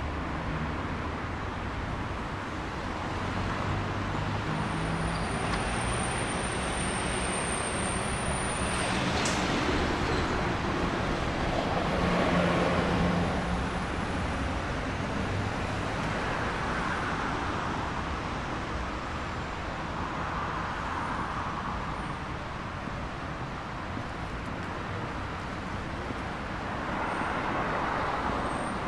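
Road traffic in a town street: a steady wash of traffic noise as cars pass one after another, each swelling and fading over a few seconds. About five seconds in, a thin high whine lasts for a few seconds.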